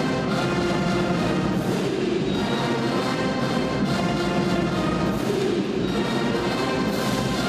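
Music with brass and drums playing steadily, with occasional cymbal-like crashes.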